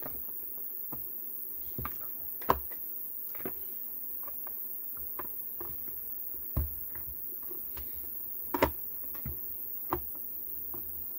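Handling noise from a charger cable and plug being fitted to a scooter battery pack and the charger brick being moved on a silicone work mat: a scattered series of clicks and knocks, loudest about two and a half seconds in and again near eight and a half seconds.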